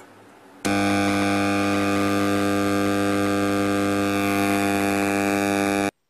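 Intex home theatre switched on, giving a loud, steady buzzing hum from its speakers that starts abruptly under a second in and cuts off suddenly near the end. The hum is the sign of a fault in its power supply: burst filter capacitors (25 V 2200 µF) that no longer smooth the DC, to which the repairer puts it down.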